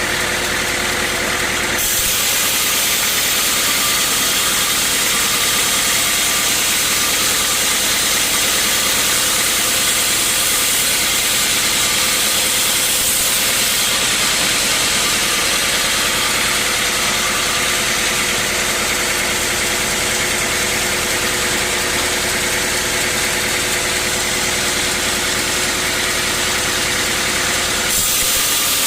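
Sawmill saw and its engine running: a steady engine drone, with a loud, broad hiss of the saw cutting through wood that comes in about two seconds in and drops away near the end.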